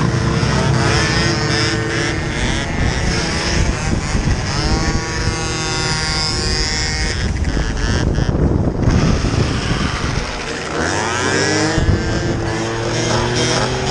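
Several 50cc two-stroke scooter engines revving hard for wheelies, their pitch climbing and dropping with the throttle, with clear rising revs about five seconds in and again near eleven seconds. Under them runs a steady low rumble of wind and road noise from the riding camera scooter.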